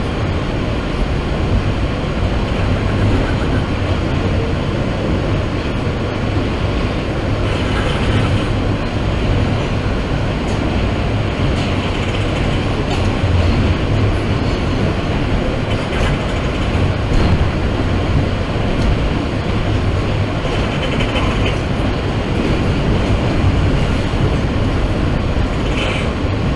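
New York City subway car running between stations, heard from inside the car: a loud, steady rumble and rattle of the train in motion.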